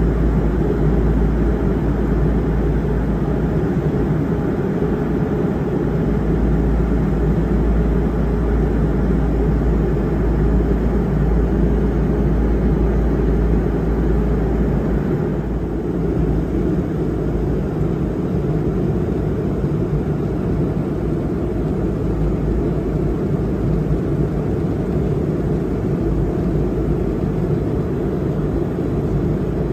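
Steady cabin noise of an airliner at cruise: the even, deep drone of the engines and rushing air, heard from inside the passenger cabin.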